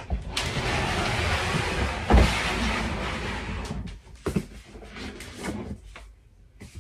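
A storage box being opened and its contents handled: a long rustling scrape for about three seconds with a knock about two seconds in, then scattered small rustles and clicks.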